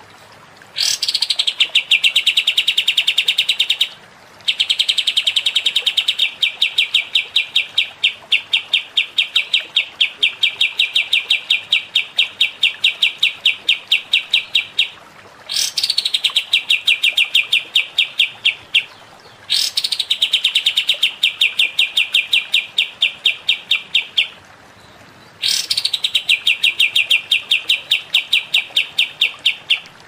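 Harsh songbird tutor recording: long, rapid trills of repeated notes, each bout opening with a rising sweep. There are five bouts of about 3 to 10 seconds with short pauses between them.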